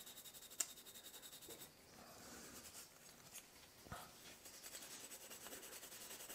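Faint scratchy rubbing of a green Scotch-Brite pad scuffing a small stripped die-cast metal toy car body, with two light clicks, about half a second in and near four seconds in.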